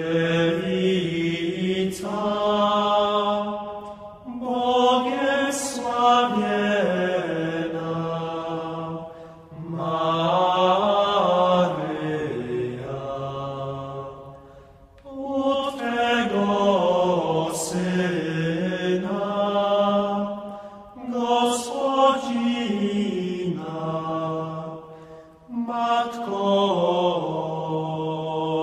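A man's solo voice chanting in long, drawn-out melodic phrases of about four to six seconds each, the pitch winding up and down within each phrase, with short breaks for breath between them.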